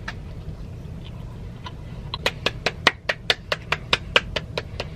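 Hands handling takeout food containers and packaging: a rapid run of light clicks and crinkles, about four or five a second, starting about a second and a half in.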